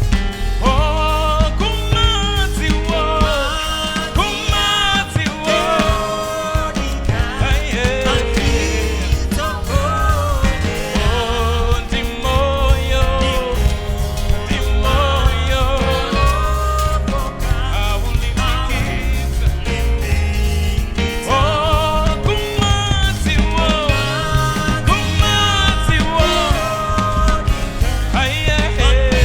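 Worship band music with drums and bass, and voices singing a slow, held melody over it.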